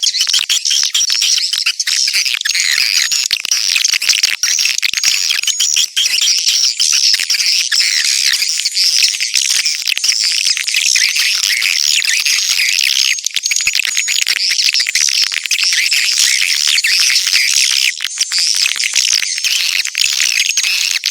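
Swiftlet calls played back as a lure track: a dense, continuous high-pitched chattering twitter of many overlapping birds, the kind of call sound used to draw swiftlets into a nesting house.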